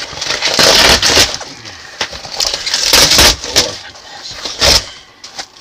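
Cardboard box bound in duct tape and parcel tape being torn open by hand: ripping and crumpling cardboard in three bursts, the last one short.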